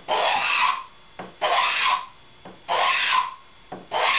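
Hand plane taking a heavy cut along the edge of a wooden strip to form a bevel: four strokes about a second and a bit apart, each a half-second scraping swish, with a short knock just before each.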